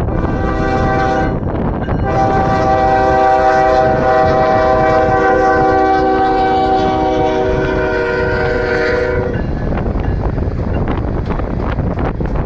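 Norfolk Southern freight locomotive's air horn sounding a chord of several notes: one blast ends about a second in, and after a short break a long blast is held for about seven seconds. Once the horn stops, the locomotives and empty coal hoppers roll past, with the wheels clicking over the rails.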